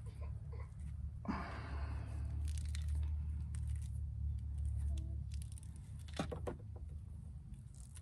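Bare copper strands of a stripped battery cable end being twisted between the fingers: scattered small crackles and scratchy clicks, with a longer rustle about a second in, over a steady low rumble.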